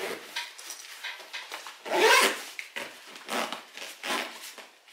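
Fabric rustling and swishing as a thin jacket is stuffed into a backpack's laptop compartment, in several separate swishes, the loudest about two seconds in.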